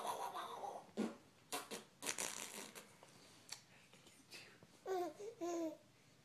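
A young baby's belly laughs: short breathy, gasping laughs over the first few seconds, then two short voiced laughs about five seconds in.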